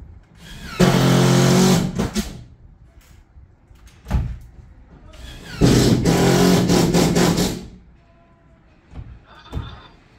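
A handheld power tool runs in two bursts, one of about a second and then one of about two seconds, with a few light knocks between them.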